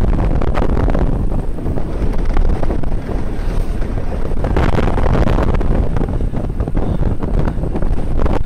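Wind buffeting a handheld phone's microphone on a fast downhill bicycle descent: a loud, unsteady rumble.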